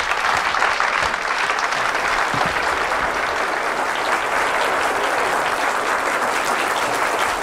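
Live audience applauding: dense, steady clapping from many hands.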